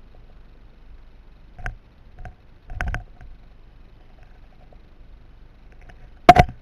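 A few short knocks, then one loud, sharp crack near the end.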